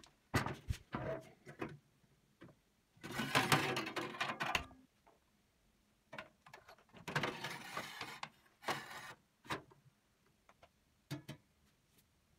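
Handling of an electric shashlik maker: a few knocks as it is set down, then two stretches of metal scraping and rattling as meat-loaded steel skewers and the tray are slid into place, followed by a few clicks as the lid goes on.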